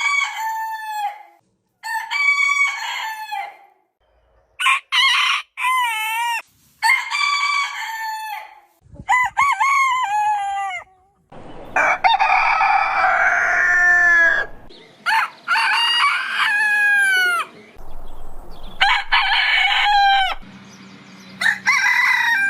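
Roosters crowing one after another, about ten crows in all, each a drawn-out cock-a-doodle-doo of one to three seconds. Many crows start or stop abruptly, as if cut together.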